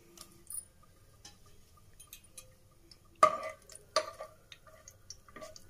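A steel ladle knocks against the side of an aluminium pressure cooker pot, a sharp ringing clink a little past three seconds in and a lighter one about a second later, with faint small ticks around them.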